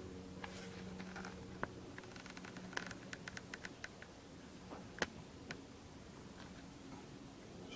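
Light ticks and scratches of a heated nakwha burning iron worked against hanji paper, with a quick run of about eight ticks near the middle and a sharper tick about five seconds in. A low steady hum runs underneath.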